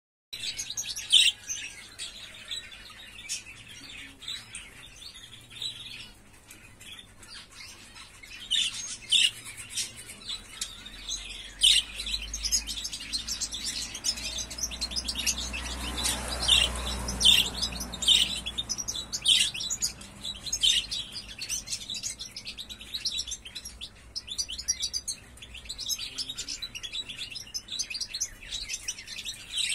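Young European goldfinch giving its first, still unformed song: short high chirps and twittering notes, scattered at first and running together more continuously from about a third of the way in.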